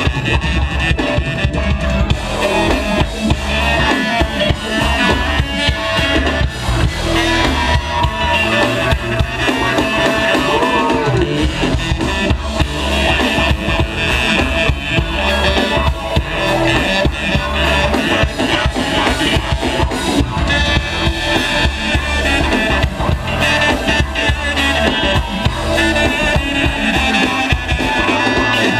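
Live funk band playing through a club PA, with a steady drum-kit beat and kick drum, heard from within the crowd.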